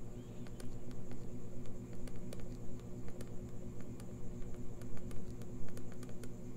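Steady electrical hum with a faint high whine, under irregular faint ticks.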